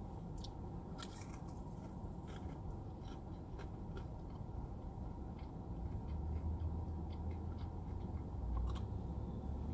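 A person biting and chewing a crisp-coated fried chicken wing, with scattered faint crunches and mouth clicks. A low rumble comes in about halfway through.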